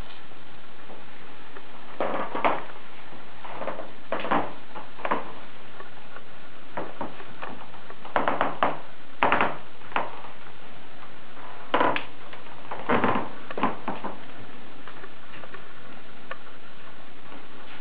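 Steady hiss with irregular short knocks and clicks, single or a few close together, from about two seconds in until about fourteen seconds in.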